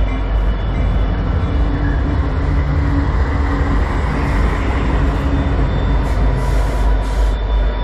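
CN diesel freight locomotives passing at close range, their engines running under power with a steady loud rumble and the wheels rolling on the rails.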